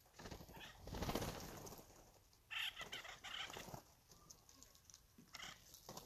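Steller's jays taking off with a rush of wingbeats about a second in, then a jay's harsh, rasping call given in a quick run of about five notes.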